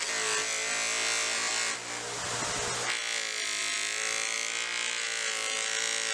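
Makita GB602W bench grinder running, its motor giving a steady hum and whine, while a steel ball peen hammer head is pressed against the spinning wheel to polish it, adding a steady hiss. About two seconds in the sound dips briefly and shifts as the head is repositioned on the wheel.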